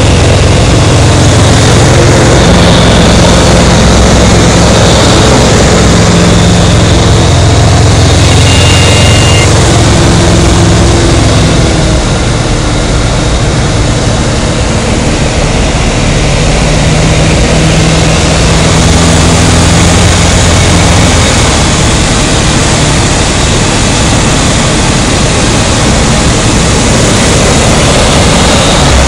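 Robin DR 400 piston engine and propeller running in flight, heard from inside the cockpit as a loud steady drone mixed with airflow noise. The drone eases a little about halfway through.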